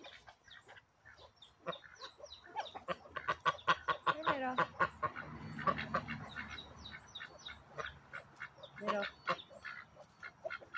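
White domestic ducks quacking in a rapid string of short calls, with a few longer quacks about four seconds in and again near nine seconds.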